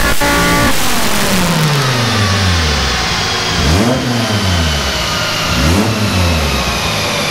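Turbocharged VW 07K 2.5-litre five-cylinder in a Porsche 944 at the end of a chassis-dyno power run: it runs at high revs for under a second, then the throttle closes and the revs fall away steadily. Two short rises in revs follow, about four and six seconds in, with a faint high whine slowly sinking underneath.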